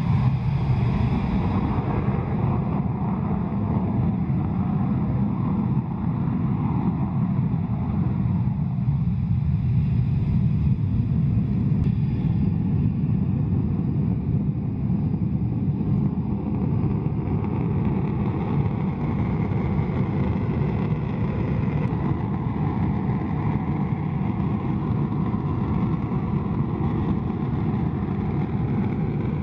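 Panavia Tornado jets' twin RB199 turbofan engines running steadily on the ground while the aircraft hold on the runway, short of take-off power: a deep, even rumble with faint steady whining tones above it.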